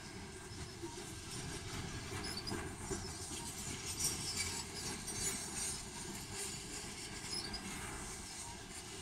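Covered hopper cars of a freight train rolling past on steel wheels and rail: a continuous rumbling noise, with a few louder knocks about four and five seconds in.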